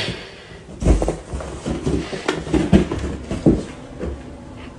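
A cat batting a balloon around: a series of soft thumps and knocks, loudest about a second in and several more through the middle.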